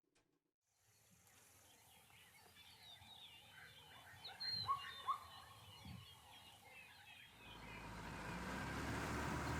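Faint bird calls and chirps, many short notes, with two louder whistled notes about five seconds in. Near the end a steady hiss of background noise takes over.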